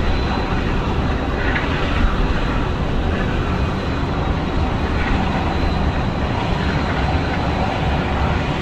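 Airbus A319 jet airliner's engines running, a steady rushing noise with a deep rumble and a faint high whine.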